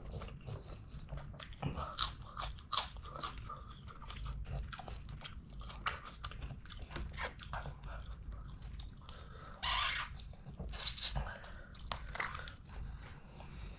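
Close-miked wet, sticky clicking and smacking of fingers mixing rice and chicken curry on a banana leaf, along with eating and chewing. One brief louder sound comes about ten seconds in.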